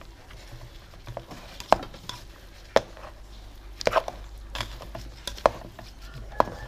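A rice paddle stirs cooked rice in an aluminium pot, knocking sharply against the pot's side about once a second.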